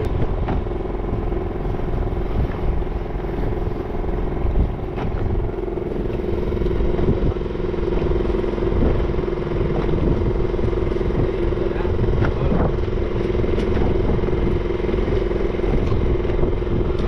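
A fishing boat's engine running steadily, a constant hum over a low rumble, with a few faint clicks and knocks.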